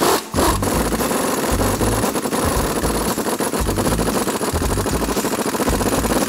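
Ingersoll Rand Titanium air impact wrench hammering steadily as it breaks loose and runs out the rear control arm bolts, after a brief stop near the start.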